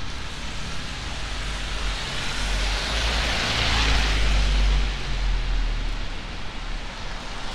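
A car passing on a wet street: tyre hiss and a low engine rumble swell over a couple of seconds, peak mid-way, then fade.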